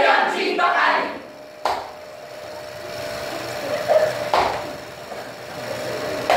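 A group of young voices shouting in unison for about a second, then single sharp thumps about 1.7 s and 4.4 s in and again at the end, over a faint steady hum.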